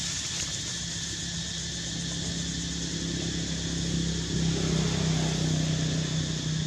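A steady low engine hum that grows louder about four seconds in, over a steady high-pitched drone.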